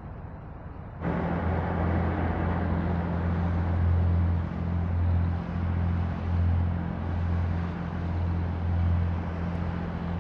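Diesel engine of a passenger ferry manoeuvring at a landing pontoon: a steady low drone that swells and eases slightly, over the hiss of propeller wash churning the water. It starts suddenly about a second in.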